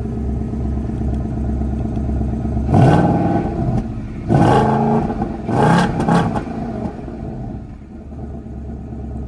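2024 Mustang GT's 5.0-litre Coyote V8 on the standard exhaust without active valves, idling, then remote-revved from the key fob: three quick revs starting about three seconds in, each rising in pitch, before it settles back to idle.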